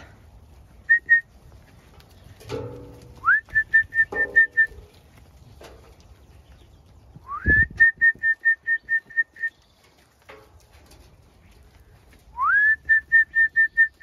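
A person whistling to call sheep: three calls about four to five seconds apart, each a quick upward slide into a rapid run of short, high, evenly pitched pips, with two lone pips before the first.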